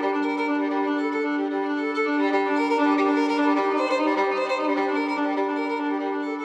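Background music: a slow fiddle tune with long held notes.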